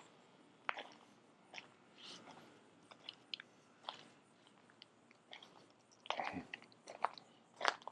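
Faint footsteps crunching on a path: irregular short crunches and clicks, about one or two a second, a little louder near the end.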